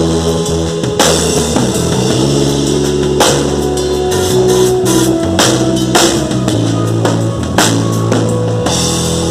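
A band plays an instrumental passage with no singing: a drum kit with cymbal crashes every second or two, over sustained bass and chords.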